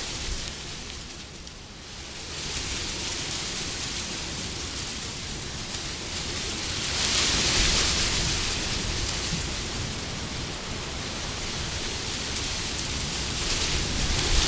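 Wind blowing in gusts, a steady rushing noise that eases off about a second and a half in, then swells to its strongest around seven to eight seconds in and rises again near the end.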